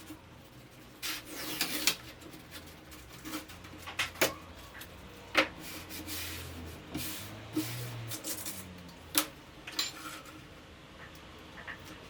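Scattered sharp taps and clicks with a short scraping stretch about a second in, typical of hand work on small wooden pieces at a workbench.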